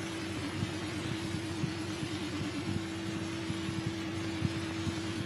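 Background noise of an old film soundtrack: steady hiss and a low hum that wobbles in pitch for a couple of seconds in the first half, with scattered faint crackles.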